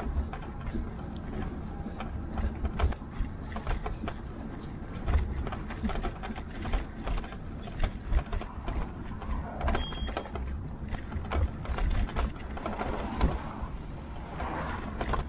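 Tern HSD cargo bike rattling and knocking over a rough, wet path, with tyre noise and a low wind rumble, as picked up by a camera mounted on the handlebars.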